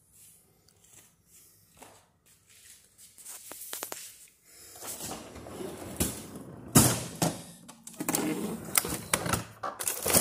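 Frozen food being handled in a freezer: a cardboard frozen-pizza box and packages rustle and scrape against the shelves, with several sharp knocks. It is quiet with a few faint clicks at first, and the handling grows louder about halfway through.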